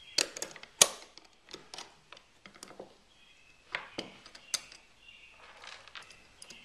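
Metal drum-brake parts clicking and clinking as a brake shoe and self-adjuster assembly is fitted together by hand: scattered sharp clicks, the two loudest within the first second.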